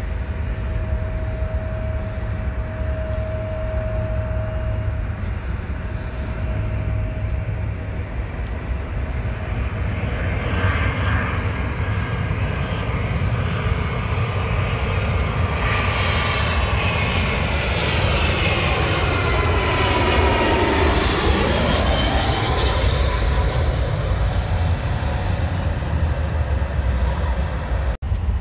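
Airliner passing close by: its engine whine builds from about a third of the way in, is loudest about two-thirds through with a falling pitch as it goes past, then fades. A steady low rumble runs underneath.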